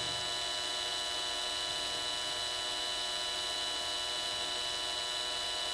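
Cordless drill running at a steady low speed, spinning a bolt-mounted workpiece while CA glue is applied, giving an even motor whine that starts and stops with the trigger.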